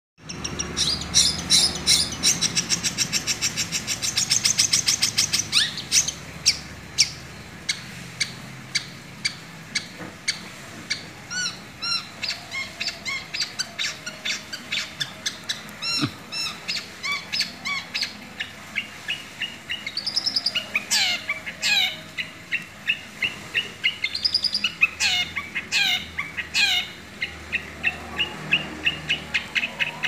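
Long-tailed shrike (cendet) singing in its cage: a long unbroken run of rapid, sharp chirps and whistles, with a fast trill early on and several downward-sweeping calls later. Its song is filled with mimicked collared kingfisher (tengkek buto) calls.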